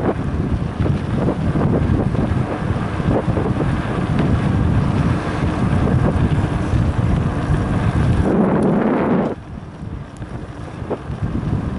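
Wind buffeting the microphone of a bicycle-mounted camera as a mountain bike rides fast along a bumpy dirt road, with the bike and tyres rattling over the surface. The rush drops off suddenly about three quarters of the way through.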